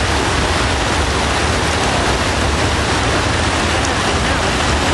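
Water rushing steadily through the gap of a stone canal lock and tumbling over its sill: a constant loud hiss with a low rumble underneath.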